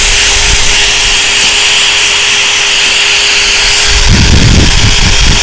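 Power drill spinning a 500-grit sanding disc against a plastic headlight lens: a steady high whine and hum with the hiss of sanding. About four seconds in the hum drops out and a rougher, uneven rumble comes in for about a second and a half as the disc bears on the lens.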